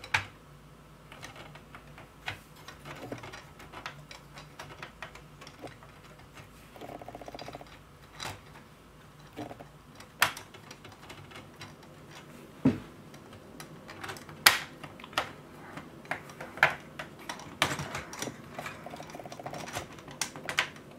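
Irregular clicks, taps and a few sharper knocks of hard plastic 3D-printed clock frame parts being handled and pressed together as axles are fitted into their bearings.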